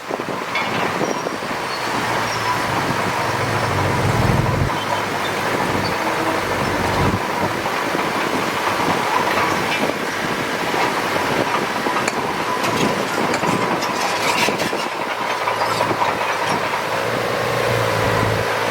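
Heavy diesel earthmoving machinery at work: a steady dense clattering noise over an engine rumble that swells around four seconds in and again near the end.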